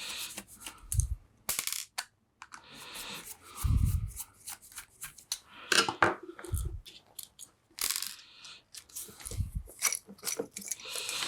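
Bench handling of small metal and plastic parts: a run of clicks and scrapes, with four dull bumps against the bench.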